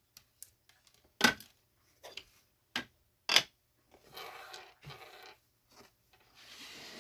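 Objects being handled on a work surface: a few sharp knocks and clicks, then two stretches of rustling or sliding.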